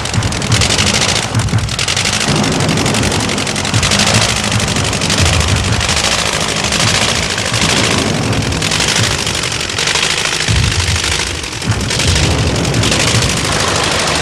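A First World War biplane's piston engine and propeller running at high power: a loud, continuous, rapid rattling that holds steady throughout.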